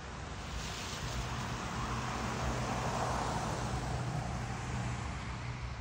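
A road vehicle passing: its noise swells to a peak about three seconds in and then fades, over a steady low engine hum.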